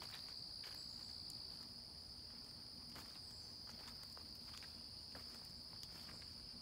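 Steady high-pitched insect chorus of crickets in late-summer woods, with faint soft footsteps on leaf litter.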